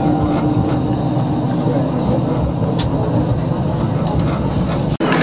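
Light rail vehicle running along its track, heard from on board: a steady rumble of wheels and motors, with a couple of faint clicks about two and three seconds in. It cuts off abruptly near the end.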